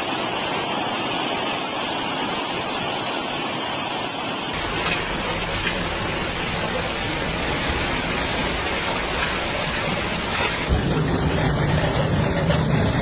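Steady, dense noise of heavy storm rain and running water, changing abruptly about four and a half seconds in and again near eleven seconds as separate clips are cut together; the last part has more low rumble.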